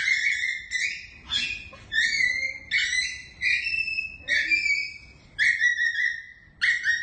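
A small dog whining: about a dozen short, high-pitched cries, roughly two a second.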